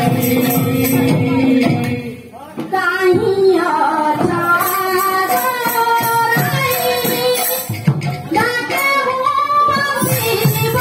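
Kirtan music: singing with a two-headed khol drum and high metallic percussion. A held note breaks off about two seconds in, and after a short lull the sung melody resumes.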